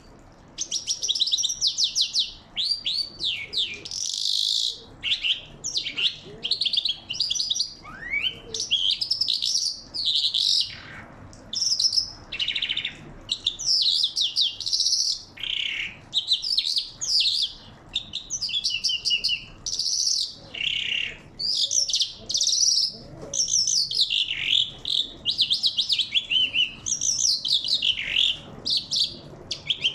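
A thrush singing a long, varied song of quick trills, whistles and glides, phrase after phrase with only short pauses.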